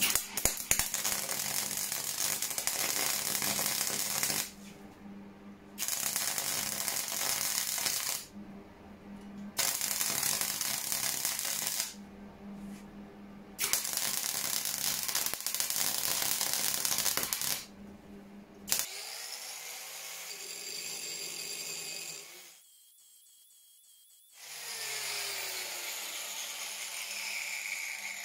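MIG welder laying short weld beads on a steel screwdriver shaft: four runs of crackling, spitting arc, each a few seconds long, with a steady electrical hum under them. After about 19 s a quieter, different shop sound follows, with a short pause near the end.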